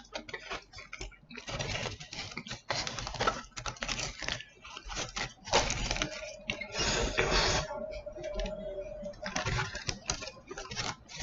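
Close-up chewing and mouth sounds of someone eating a chicken burrito: irregular wet clicks and smacks. A steady tone sounds for about three seconds midway.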